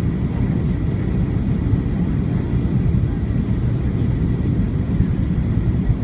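Low, steady rumble of a Boeing 737-900ER's CFM56-7B jet engines.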